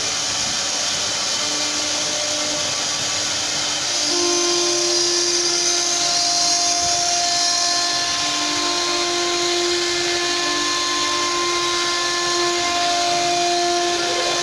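CNC router spindle carving wood: a steady high whine and hiss, with steady motor tones that hold and then step to new pitches every few seconds as the machine moves. It gets a little louder about four seconds in.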